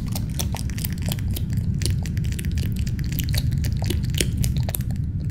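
Channel end-card sound effect: a steady heavy low rumble under dense crackling and clicking, with no tune.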